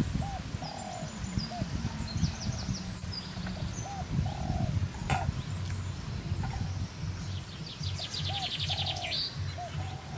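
Birds calling: a low call of a few short notes repeats three times, about four seconds apart, with higher chirps between and a fast trill near the end, over steady low background noise.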